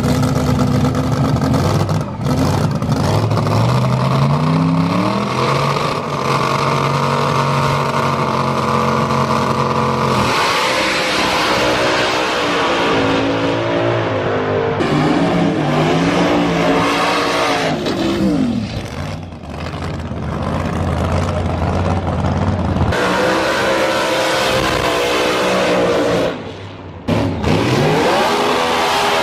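Drag-racing car engines running very loud, revving up in rising sweeps and holding at high revs. The sound breaks off abruptly several times between separate runs.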